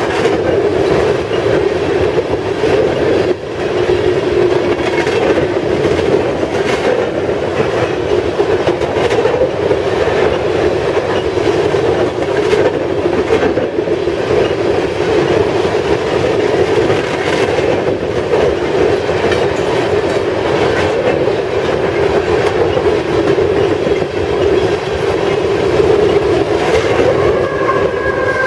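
Loaded freight cars of a long coal train rolling past at speed: a steady rumble with wheels clicking rhythmically over the rail joints. Near the end a steady whine joins in as the rear-end pusher locomotive, a GE AC4400CW, comes by.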